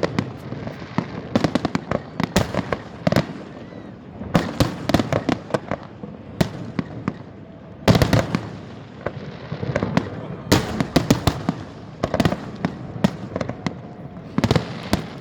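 Fireworks display: clusters of sharp bangs and crackling reports from aerial shells bursting, with the heaviest volley about eight seconds in.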